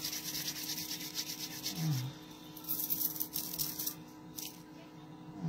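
Palms rubbing briskly together, a fast dry rasp, breaking into separate strokes after about two seconds. A short low falling sound comes twice, about two seconds in and at the end.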